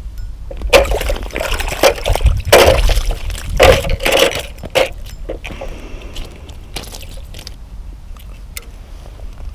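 Water splashing and wet scraping on ice in several irregular bursts as a small northern pike is lifted out of an ice-fishing hole and handled on the ice. The bursts stop about five seconds in, leaving quieter handling with a few light clicks.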